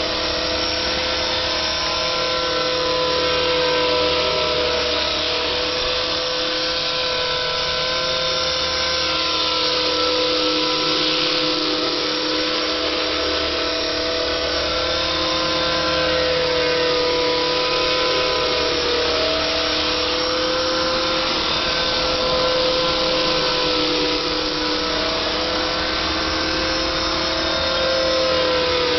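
Align T-Rex 450 electric RC helicopter in a scale EC135 fuselage flying, with a steady whine from its motor and gearing over rotor noise. The pitch wavers slightly as it manoeuvres.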